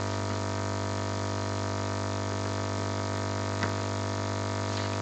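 Steady low electrical hum, a buzz with many overtones, carried through the hall's recording or sound system. There is one faint tap about three and a half seconds in.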